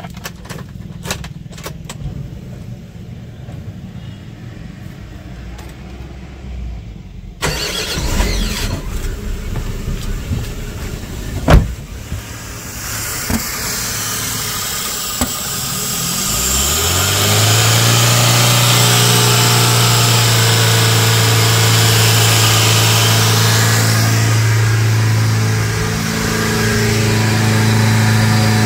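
A 2008 Chevrolet Spark's engine, after a few light clicks, starts and runs for several seconds with one sharp pop. Its speed then climbs steeply and holds at a high, steady fast idle with no throttle applied, sagging briefly near the end. This runaway idle began after the EGR valve was cleaned, and the owner suspects a vacuum leak at the intake manifold.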